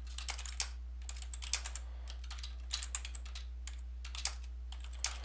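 Typing on a computer keyboard: irregular key clicks, a few at a time, over a steady low hum.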